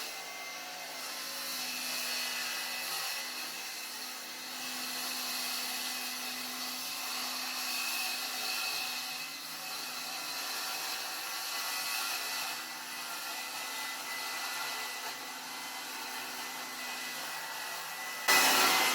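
Handheld electric power saw running and cutting through a board, a steady motor whine with sawing noise, louder for its last half-second before it stops.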